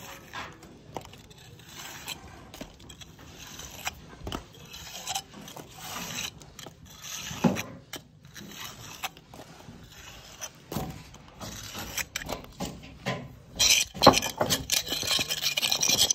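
A steel jointing iron scraping and rubbing along the mortar joints of a brick wall, tooling the joints in short, irregular strokes. The strokes grow louder and more rapid near the end.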